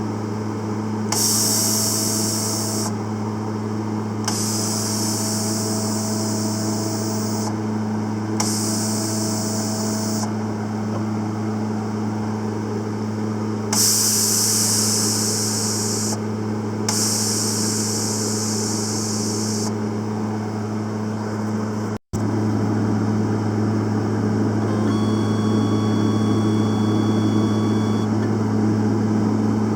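Panasonic YD-350GB2 semi-automatic welder running with a steady low transformer hum. Over it come five bursts of high hiss, each lasting two to three seconds and carrying a faint thin whine, as the torch is triggered.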